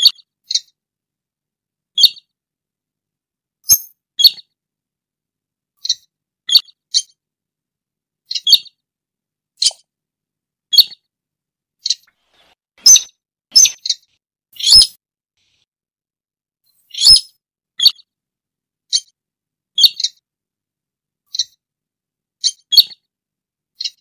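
Slaty-breasted rail giving short, sharp, high-pitched call notes, roughly one a second at uneven spacing, some in quick pairs.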